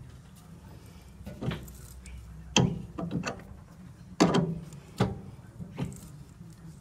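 Wrench turning an 18 mm tap by hand into an undersized 16 mm hole in aluminium: a series of sharp metallic clicks and clunks, roughly one a second and unevenly spaced, as the oversized tap is forced through the soft metal.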